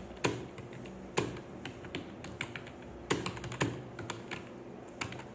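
Typing on a computer keyboard: a quick, uneven run of key clicks, with now and then a heavier keystroke, during a timed typing test.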